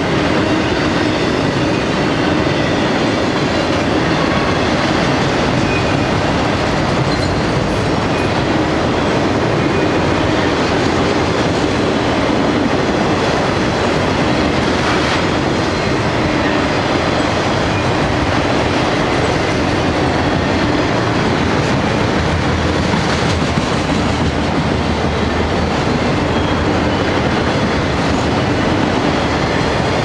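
Autorack cars of a freight train rolling past: a steady rumble and rattle of steel wheels on the rails.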